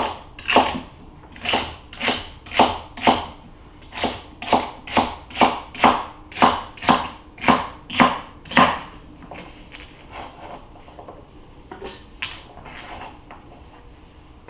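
Cleaver chopping a vegetable stalk against a plastic cutting board, in steady strokes about two a second. The chopping stops about nine seconds in, leaving only a few faint knocks.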